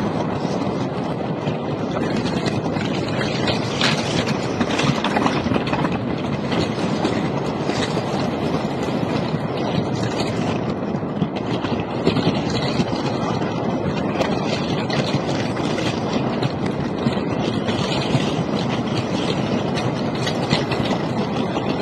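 Wooden roller coaster train running along its track: a steady rumble with scattered clatter from the wheels on the rails.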